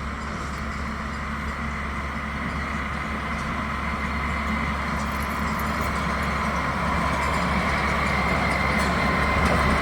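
Engine running at a steady idle, with a faint steady whine above the hum, slowly growing louder.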